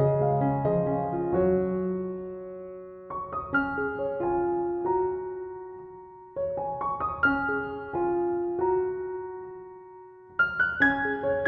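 Gentle solo piano background music: soft phrases of a few notes, each phrase fading away before the next begins, with a new phrase about three seconds apart.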